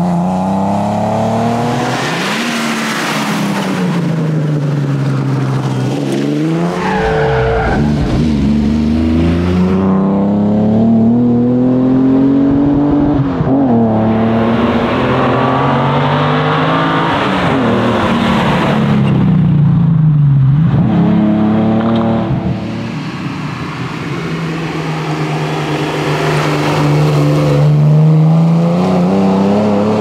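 1973 Valiant Charger E48's triple-carburettor 265 Hemi straight-six running hard under load. Its pitch rises and falls again and again as the car accelerates and backs off.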